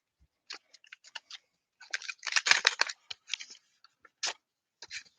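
Paper and card crinkling and rustling in short crackles, densest about two to three seconds in, as a greeting card is handled and opened.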